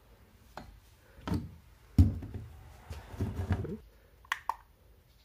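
Hands handling a lantern and a digital thermometer clock on a wooden tabletop: several knocks and thuds, the loudest about two seconds in, then two quick clicks near the end.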